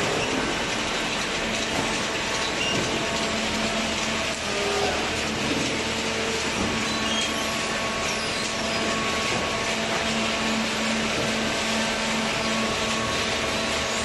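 A cardboard baler and its inclined feed conveyor running: a steady mechanical din with a constant hum underneath.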